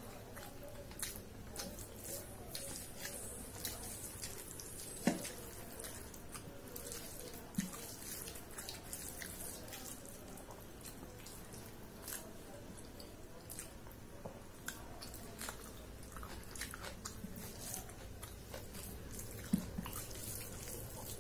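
Eating rice by hand from a stainless steel plate: fingers squishing and mashing the rice against the steel, with chewing and lip-smacking mouth sounds. The sound is a steady run of small wet clicks, with a few sharper clicks standing out about five seconds in, again about two and a half seconds later, and once more near the end.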